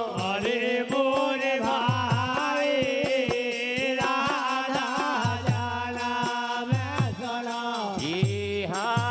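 Devotional bhajan music: men singing in chorus to the clatter and jingle of wooden kartal clappers and small hand cymbals, with low beats underneath.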